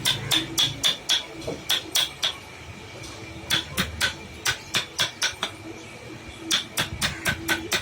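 Mallet or hammer tapping a carving chisel into wood: quick, sharp strikes with a slight metallic ring. They come about three or four a second, in three runs with short pauses between.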